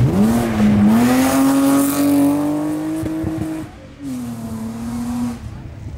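Rally car, a BMW sedan, accelerating hard past at full throttle: the engine revs climb steeply, with a quick upshift a little under a second in, then pull on through a long rising note. A little after halfway it lifts off or shifts, dropping sharply in loudness for a moment, then runs on at a steady, slightly falling pitch.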